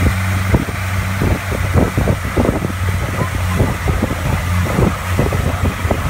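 Boat engine running steadily at speed with a constant low drone and a rush of wind and water, broken by irregular thumps.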